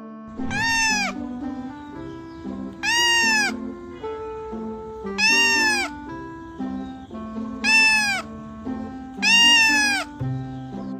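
An animal calling five times in a row, each cry about two-thirds of a second long, rising and then falling in pitch, over background music.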